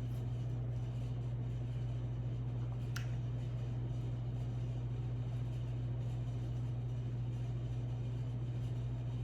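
Steady low background hum, with one short faint click about three seconds in.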